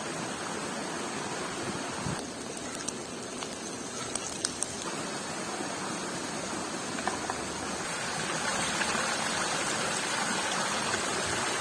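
Steady rushing water noise, with a few faint sharp clicks about three to four and a half seconds in.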